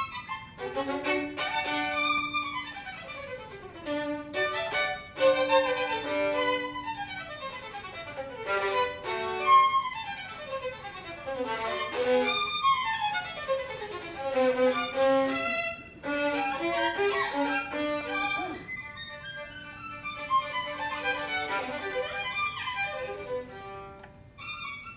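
Violin played in fast virtuoso passages: rapid runs of notes sweeping up and down the instrument's range, with a few held low notes between them.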